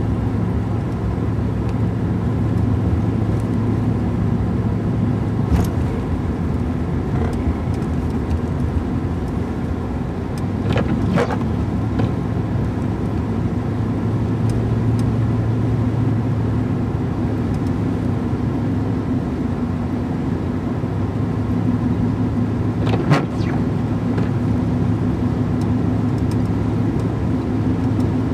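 Car driving, a steady low engine and road hum heard inside the cabin, with a few brief clicks.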